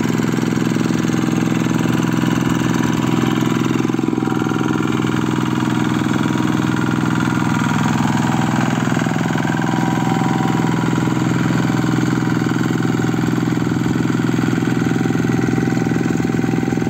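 Two-wheel hand tractor's single-cylinder diesel engine running steadily at constant speed while pulling a harrow through flooded paddy mud.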